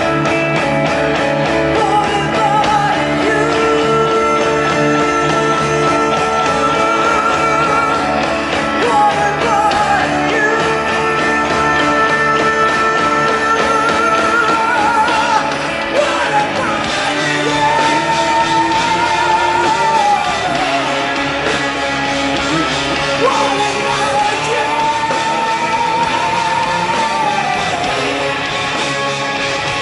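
Live oriental metal band playing, a woman's voice singing long, wavering held notes that slide down at the ends of phrases, over electric guitar and drums.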